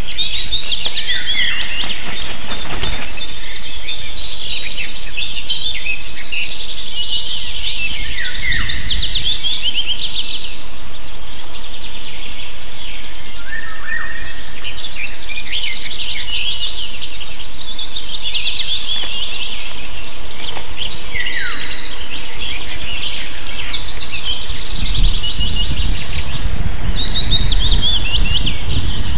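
Ospreys calling at the nest: rapid series of high, whistled chirps, repeated again and again. A low rumble joins in near the end.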